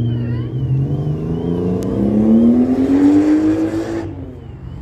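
A car engine accelerating hard, its note rising steadily for about three and a half seconds, then dropping away suddenly near the end.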